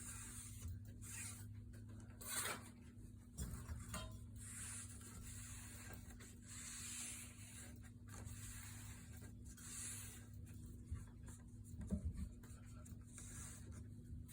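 Ceiling fan blades being dusted and wiped by hand: soft, repeated rubbing strokes along the blades, with a few light knocks.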